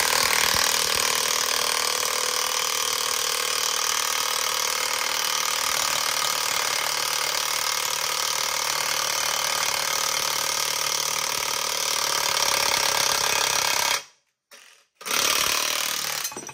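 Cordless impact wrench running continuously as it turns the screw of a C-frame ball joint press, pressing a new lower ball joint into a steering knuckle. It cuts off about 14 seconds in, then gives one more short burst about a second later.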